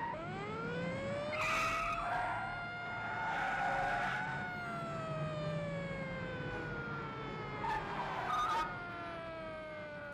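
Police car siren winding up to pitch and then slowly winding down, with tyres squealing three times as cars corner hard.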